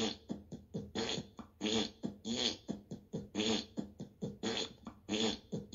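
A "Sir Farts a Lot" fart sound effect played by an Alexa fart skill through a smart speaker: a long run of short, pitched fart blasts, about two or three a second, one after another.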